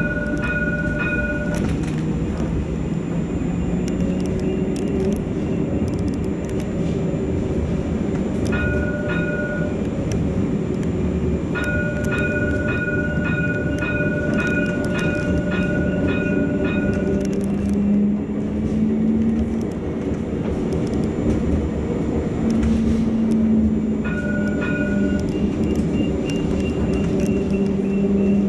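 CAF Urbos light-rail tram running: steady rolling noise of wheels on rail with the traction motors' whine rising and falling in pitch. An electronic tone sounds four times, the longest lasting about five seconds with a rapid pulsing over it.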